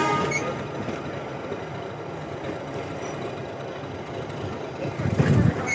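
Nilgiri Mountain Railway toy train's engine running steadily, heard from a carriage, with the last of a horn toot dying away at the start. A louder low rumble swells about five seconds in.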